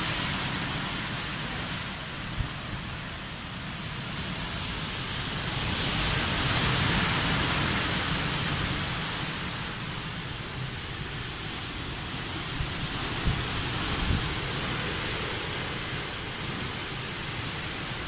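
Heavy cyclone rain and wind: a steady rushing hiss that swells and eases, loudest about a third of the way in, over a shifting low rumble. A few brief knocks stand out, once early and twice past the middle.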